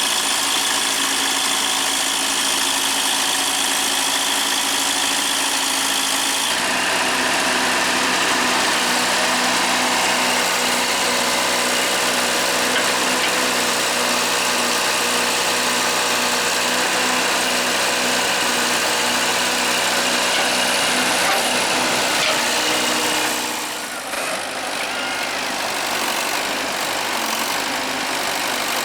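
Diesel engine of heavy farm and earthmoving machinery running steadily. Its note shifts up and fills out about six seconds in, then eases back a few seconds before the end.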